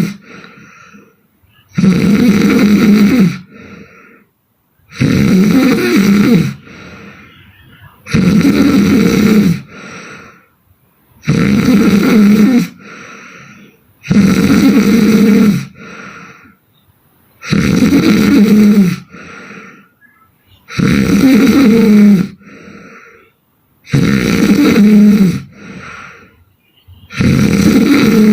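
A sleeping woman snoring loudly and regularly: a hard snore of about a second and a half roughly every three seconds, each followed by a short, much fainter breath.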